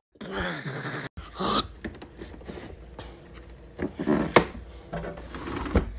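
Handling noise of the phone and fabric rubbing and scuffing against the microphone, broken by a sudden dropout about a second in, with a few short voice-like sounds.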